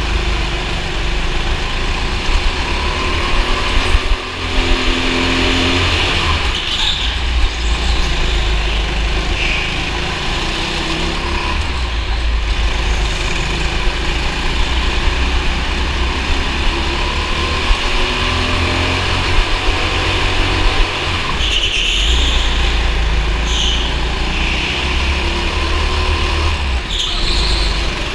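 Racing kart engine running hard, its pitch rising and falling as the driver accelerates and backs off through the corners, heard onboard with heavy low rumble from vibration on the camera. A few brief high squeals come near the start and in the last third.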